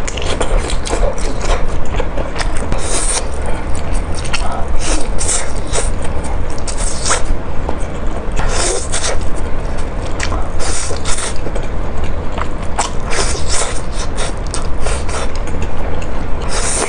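Close-miked eating of creamy spaghetti: wet chewing and mouth smacks with repeated short slurps of noodles, over a steady low hum.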